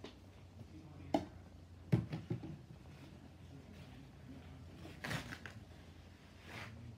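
Household items being handled and set down: a few sharp knocks, the loudest about two seconds in, then two short rustles near the end.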